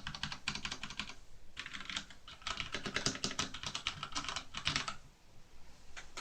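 Typing on an Ozone Strike Battle mechanical keyboard with Cherry MX Brown switches: rapid runs of keystroke clacks in bursts, with short pauses between them, the longest near the end.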